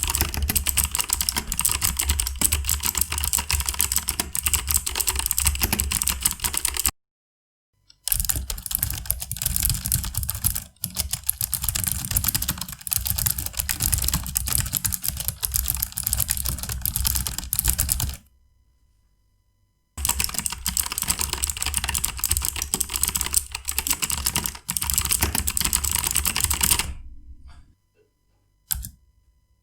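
Razer Ornata Chroma mecha-membrane keyboard being typed on fast, crisp clicky keystrokes from the small metal click plate on each key over its rubber dome. The typing comes in three long runs separated by brief silences, then a few single key presses near the end.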